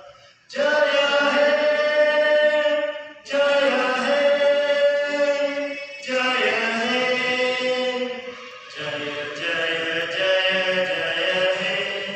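Voices singing in long, held, chant-like phrases, four of them, with a short breath between each.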